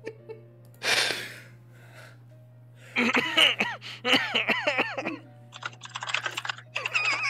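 Quiet background music under bursts of high-pitched laughter in short repeated pulses, with a sharp breathy burst about a second in.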